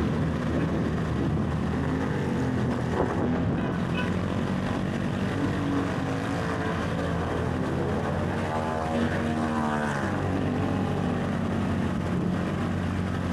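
Small motorcycle engine running steadily while riding through floodwater, with the water splashing around the wheels. A pitched sound that rises and falls comes about eight to ten seconds in.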